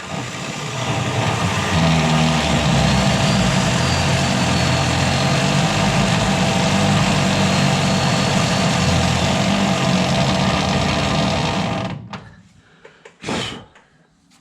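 Electric drill running a rotary burr bit, grinding away a marked section of the car's body panel. It runs steadily at high speed for about twelve seconds, then stops, and a short knock follows.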